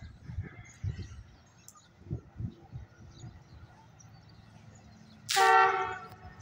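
A horn sounds once, a single blast of a little under a second about five seconds in. Before it there are a few low, dull thumps.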